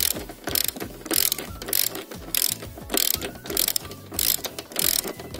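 Ratchet wrench on a socket extension clicking in short runs, one on each back-and-forth stroke of the handle, about one and a half strokes a second, as a fender mounting bolt is undone.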